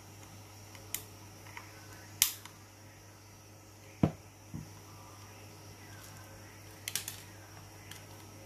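Scattered clicks and taps of a small precision screwdriver working the tiny screws in a plastic headphone earcup plate: a sharp click about two seconds in, a dull knock about four seconds in, and a few quick clicks near the end, over a steady low hum.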